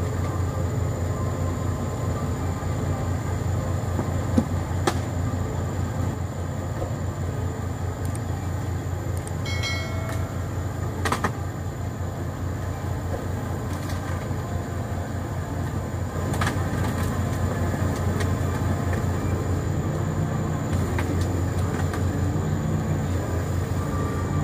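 Hitachi Zaxis 210-5G crawler excavator's diesel engine running steadily with a low pulsing drone, and a few sharp knocks and clanks now and then.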